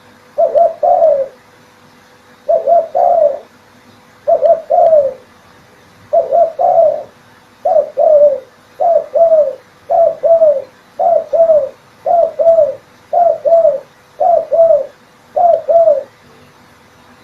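Spotted dove cooing: about thirteen short phrases of two or three low coos each. The first few are about two seconds apart, and after that they come roughly one a second.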